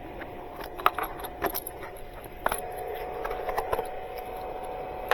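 Scattered light clicks and rattles of a jump-starter pack's cord and accessories being handled, over a faint steady high tone.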